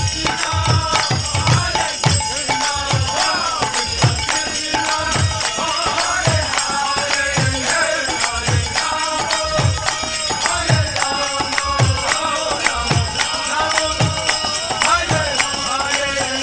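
Devotional kirtan music: chanted singing over a low drum stroke about every three quarters of a second, with continuous jingling metal percussion.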